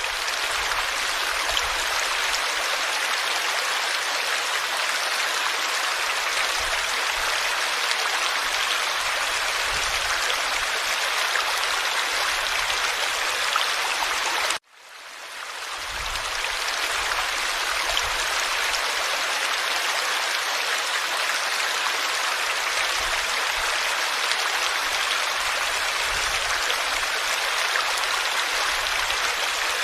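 Forest stream flowing, a steady rushing and babbling of water. Near the middle it cuts out abruptly and fades back in over about a second.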